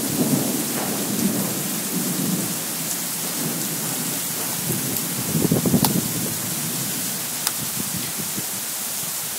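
Heavy rain pouring down in a severe windy thunderstorm: a steady hiss with low rumbling surges, the strongest about five and a half seconds in, and a few sharp ticks.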